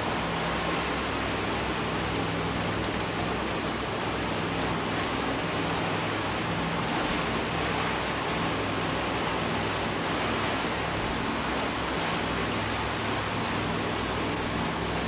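The twin Chrysler V8 marine engines of a wooden motor yacht running steadily under way: an even low hum under a constant hiss of wind and water.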